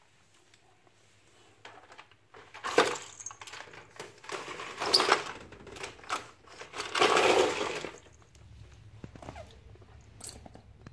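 A glass sliding door rattling and scraping in three rough bursts as a dog paws at the glass.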